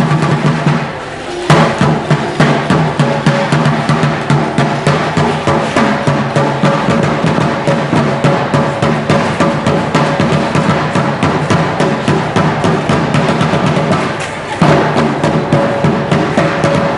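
Drumming for an Aztec dance in a fast, even beat, mixed with the rattling of the dancers' shell or seed ankle rattles. The beat drops away briefly twice, about a second in and near the end, and comes straight back.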